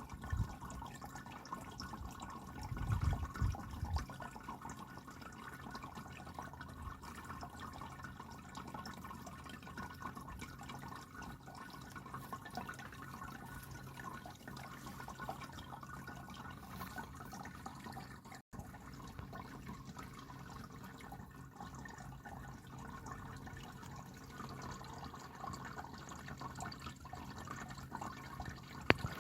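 Electric pet water fountain running: water trickling steadily over a low, steady pump hum. A few low thumps come about three seconds in.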